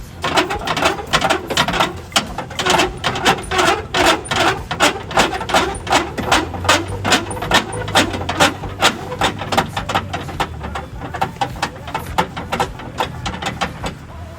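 Hand-cranked ratchet tool clicking in a fast, even rhythm, about two to three strokes a second, as the spare tire or the jack is worked by hand.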